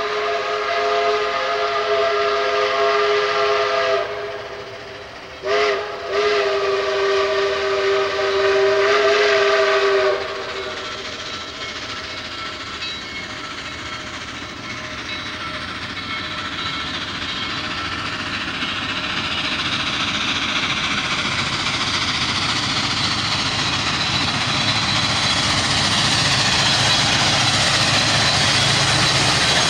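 Southern 2-8-2 Mikado steam locomotive No. 4501 sounding its steam whistle for a grade crossing: a long blast, a short one, then another long blast, ending about ten seconds in. The train then approaches with its exhaust and running gear growing steadily louder and nearer.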